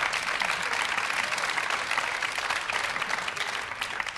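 Studio audience applauding, a dense steady clapping that begins to ease off near the end.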